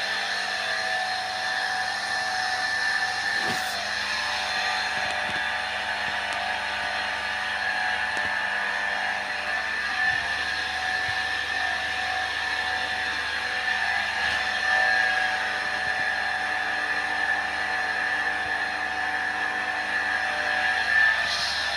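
A small motor whirring steadily with a high, even whine that holds the same pitch throughout.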